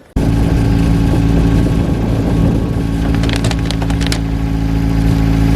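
Car engine idling steadily, with a few light clicks about three to four seconds in.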